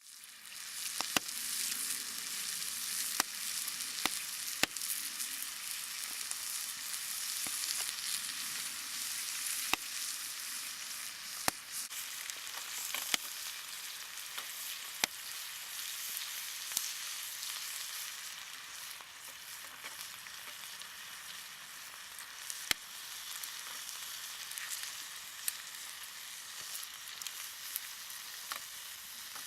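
Campfire cooking: a steady sizzling hiss, broken by sharp, irregular pops every few seconds.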